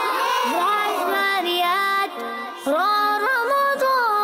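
Children's Arabic alphabet nasheed sung by a high voice: two held, melodic phrases with a short break a little past halfway.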